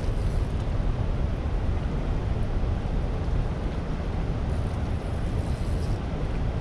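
Steady rushing noise of water churning in the outflow below a dam, with wind buffeting the microphone.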